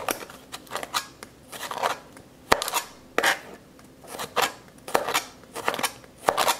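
Crinkle cutter's wavy metal blade pressed through raw carrot on a plastic cutting board: a series of short, crisp crunching cuts, about one or two a second, with one sharper knock about two and a half seconds in.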